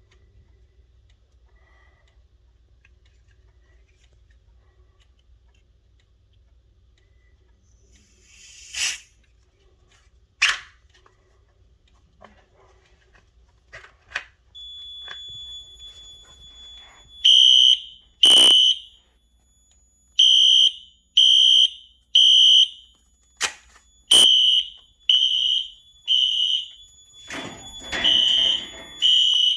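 Fire alarm horn sounding in the temporal-3 evacuation pattern, three half-second beeps a second apart, then a pause, repeating: the system going into alarm as the hallway smoke detector is tested. Before the horns start there is a short hiss, a few clicks and a faint steady high tone.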